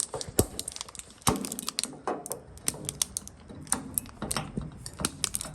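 Irregular clicks, knocks and scrapes of hands straining at a stuck spin-on oil filter, trying to twist it loose; it does not come off.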